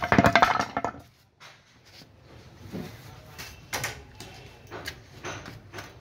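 A loud, rapid rattling clatter of hard objects being handled in the first second, then a few separate knocks and taps.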